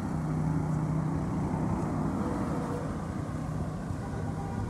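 Street traffic on a wet road: a vehicle engine running steadily with a low hum over general road noise.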